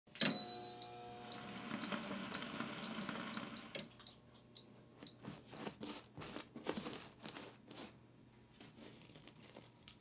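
A small electric oven: a bell-like ding at the start, then the oven running with light regular ticks until it clicks off near four seconds in. After that come soft repeated strokes, about two a second, of a silicone pastry brush glazing the baked buns.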